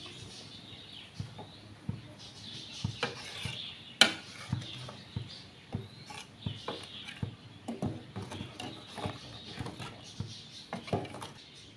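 Metal ladle stirring and knocking against the sides of an aluminium pot of boiling curry, a run of irregular clinks and scrapes with one sharp clank about four seconds in.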